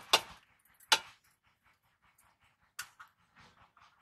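Aluminium and steel cooking pots and plates clanking as they are handled: two sharp knocks in the first second, another a little before three seconds in, with soft scraping and rustling between.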